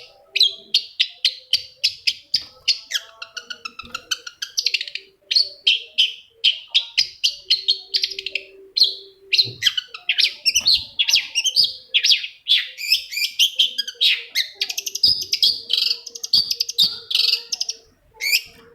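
Long-tailed shrike (cendet) singing a fast, unbroken run of short chattering and chirping notes, several a second.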